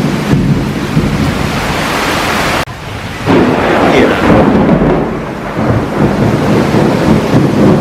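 Heavy rain pouring during a thunderstorm, with loud thunder rumbling. The sound drops away suddenly for about half a second, a little over two and a half seconds in, then the rumble comes back loud.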